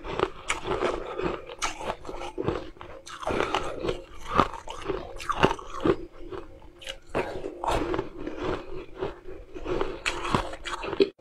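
Close-up crunching and chewing of frozen ice chunks in the mouth, with sharp, irregular crunches several times a second that cut off abruptly just before the end.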